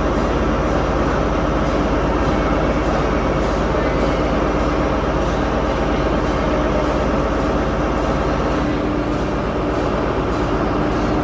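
Diesel train engine running steadily while stationary, a continuous drone with a constant hum.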